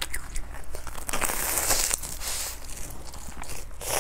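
Close-miked biting and chewing of a batter-fried cheese corn dog: crackly, crunchy mouth noises, busiest in the middle.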